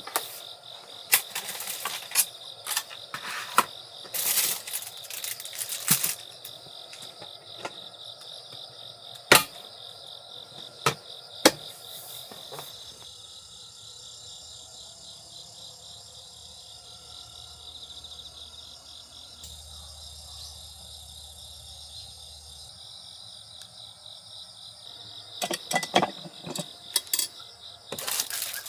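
Crickets chirping steadily as a constant high trill. Over it come a run of sharp clicks and knocks, as of things being handled, in the first half and again near the end.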